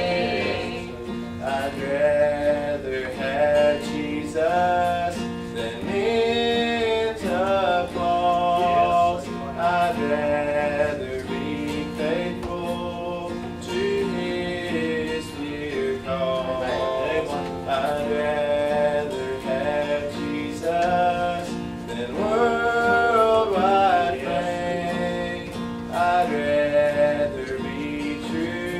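Gospel music led by acoustic guitar, with a melody line wavering in vibrato over the strummed chords.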